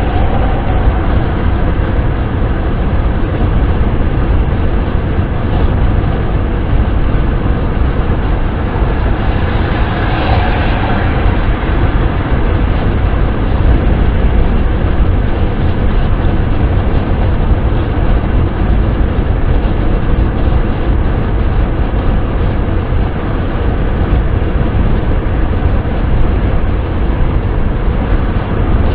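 Steady wind and road noise from a vehicle being driven, carried by a deep rumble, with a brief brighter swell about ten seconds in.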